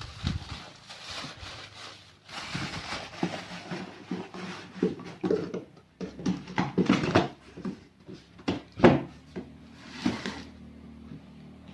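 Handling noise from unpacking loudspeaker drivers: packaging rustling and scraping, with a string of irregular knocks and thuds, the sharpest one about nine seconds in. A faint steady low hum runs underneath.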